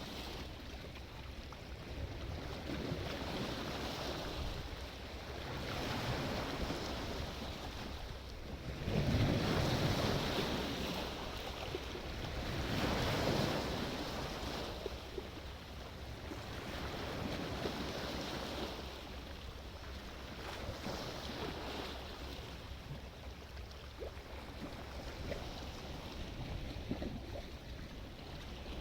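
Sea waves breaking and washing in, the noise swelling and falling away every few seconds. The biggest surge comes about a third of the way in.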